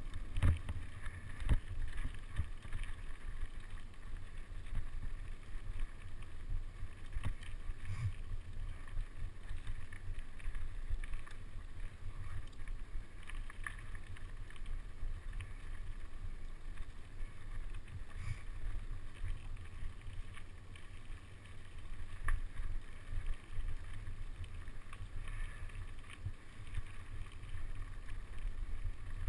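Mountain bike ridden fast over a rough dirt trail: wind buffeting the microphone over a steady low rumble, with irregular knocks and rattles as the bike goes over bumps and roots.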